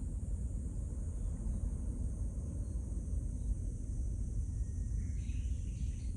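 Outdoor ambience: a steady high-pitched insect drone over a low rumble, with a few faint chirps near the end.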